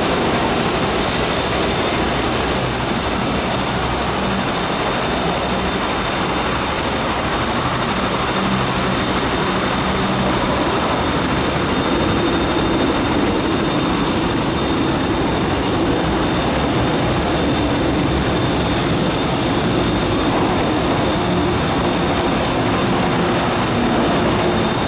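MTR M-Train (Metro-Cammell electric multiple unit) running through a station without stopping: a steady rush of wheel and rail noise with a steady hum that comes in about halfway as a train draws alongside the platform.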